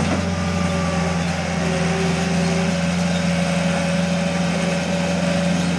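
Cat 242 skid steer's diesel engine running at a steady speed, a constant low hum with a fainter higher whine over it.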